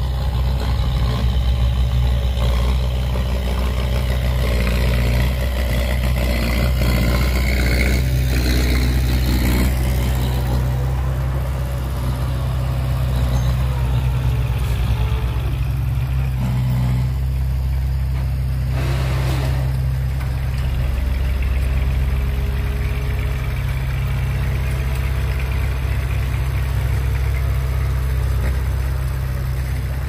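Heavy earthmoving vehicle's diesel engine running steadily, with a short hiss about two-thirds of the way through.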